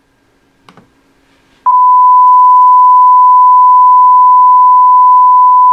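A loud, steady 1 kHz test tone from a tone generator, one pure unwavering pitch starting about a second and a half in, used as the reference for calibrating a sound level reading. A faint click comes just before it.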